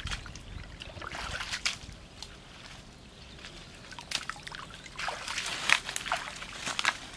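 Hands digging wet mud out of shallow water: water sloshing and trickling, with wet splashes that come in bursts about a second in and again from about five seconds in.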